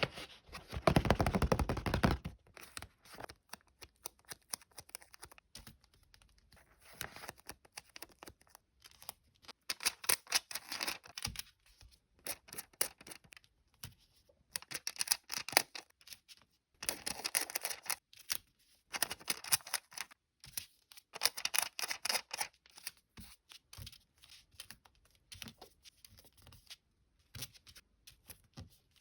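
Sticker packets crinkling and being torn open by hand, in several bouts of dense crackling, the loudest in the first two seconds.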